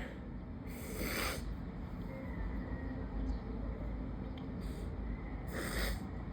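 A person in an allergy sneezing fit, with sharp nasal bursts about a second in and again near the end, and a fainter one in between.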